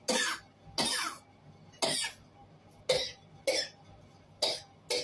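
A person coughing, short sharp coughs about once a second.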